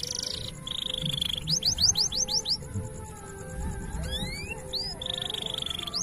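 Domestic canary singing: a fast buzzy trill, then a run of about six quick rising notes, a long upward glide about four seconds in, and another buzzy trill near the end.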